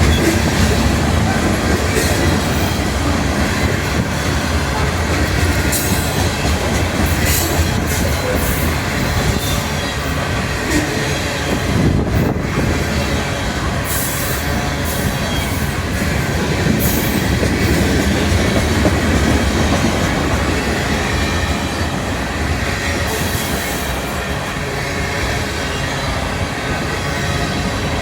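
Freight train cars rolling past on steel rails: a steady rumble of wheels on track with occasional brief high-pitched wheel squeals.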